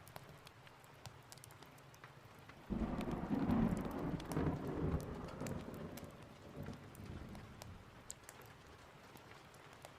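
Steady rain with a sudden thunderclap about three seconds in. The thunder rumbles low and fades away over the next four seconds or so.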